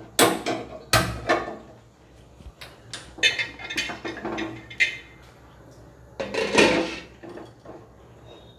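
A hand-held gas lighter clicks a few times to light a gas stove burner. Then a glass lid and a metal kadai clatter as they are handled, with a longer scraping clatter about six seconds in as the kadai is set on the burner grate.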